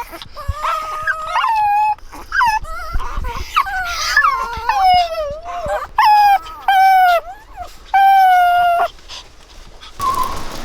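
Maltese dog howling and whining in a run of high, wavering calls, the last few drawn out and falling slightly in pitch.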